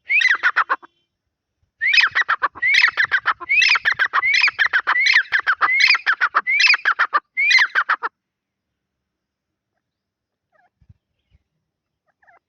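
A partridge (tetar) calling: a short burst of harsh chirps, then after a pause a run of repeated rising-and-falling raspy notes, a little over one a second, that stops about eight seconds in.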